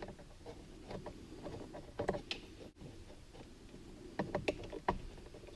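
Scattered light clicks and taps of small plastic parts being handled as wire terminals are pushed into a rocker-switch connector, in a few short clusters.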